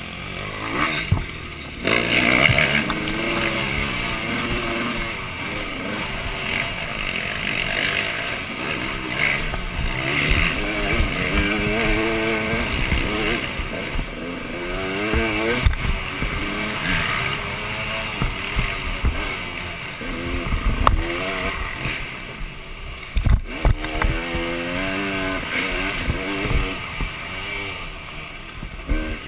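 Dirt bike engine revving up and down as it is ridden hard along a rough trail, its pitch rising and falling with the throttle. A few sharp knocks from the bike hitting bumps.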